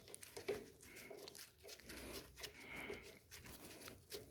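Faint, irregular clicks and rattles of a socket and ratchet being handled and fitted onto a nut.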